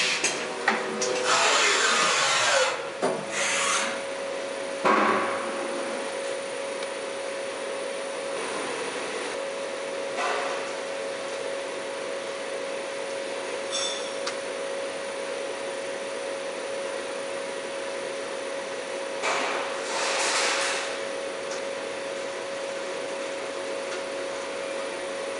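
Cincinnati Milacron Arrow 500 CNC vertical machining center working its automatic tool changer: loud bursts of hissing for the first few seconds and a sharp clunk about five seconds in, then the machine running with a steady hum and a constant tone, broken by short hisses about ten and twenty seconds in.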